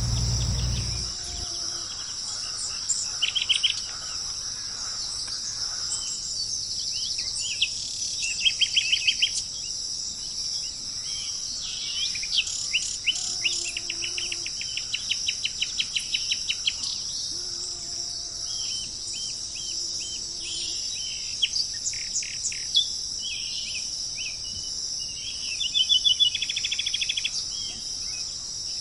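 Birds calling in bursts of rapid, high chirping trills over a steady high insect drone, with a few fainter, lower drawn-out calls in the middle.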